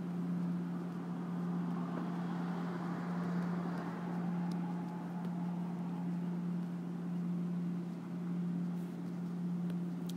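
Steady low hum over a soft hiss of background noise, with a few faint clicks.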